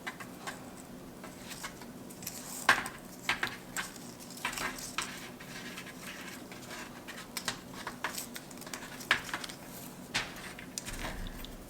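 Hands working with small objects on a work surface: faint rustling with scattered light clicks and taps, the sharpest about three seconds in.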